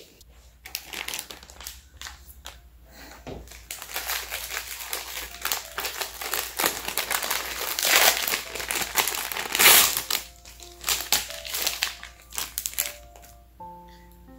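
A packet crinkling and rustling as it is handled and opened, in an irregular run of crackles that is loudest about eight and ten seconds in. Soft music with plucked notes comes up near the end.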